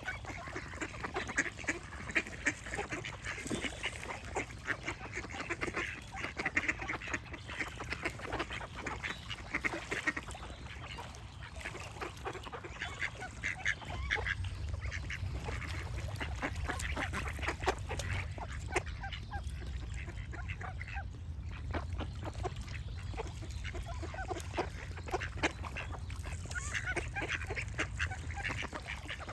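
Ducks quacking in quick runs, busiest in the first half and again near the end. A low rumble comes in about halfway.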